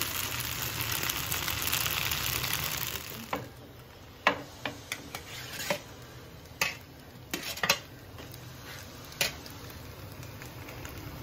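Noodles sizzling in a hot wok while a slotted metal spatula stirs and tosses them; the sizzle dies down after about three seconds. Then scattered sharp clicks and knocks of the spatula against the wok as pieces of chicken are put in on top.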